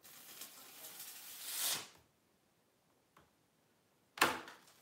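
Aquarium siphon tube drawing water and air, a hissing slurp that swells and then cuts off about two seconds in. A faint click follows, then a sharp knock near the end.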